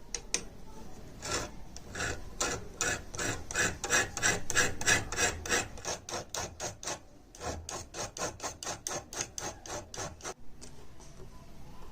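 Rhythmic hand-rubbing strokes on a part of an old razor, about three or four a second, like filing or sanding by hand. They pause briefly about seven seconds in, resume, and stop about ten seconds in.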